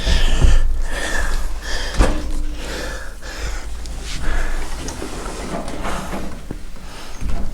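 Knocks, bumps and scraping of a person clambering over an obstacle, with a sharp knock at the start and another about two seconds in, and close heavy breathing.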